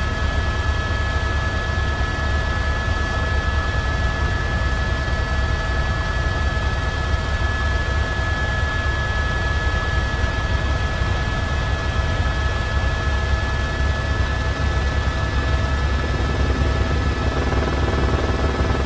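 Steady, loud engine drone with a deep rumble and a constant high whine over it, unchanging throughout; a few fainter low hums join near the end.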